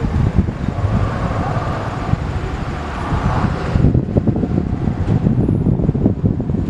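Motor vehicle running on the street, its noise falling away about four seconds in, over wind buffeting the microphone with a choppy low rumble.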